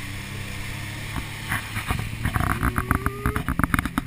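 Pontoon boat's motor running steadily under way, with a rapid series of knocks and rattles over it in the second half.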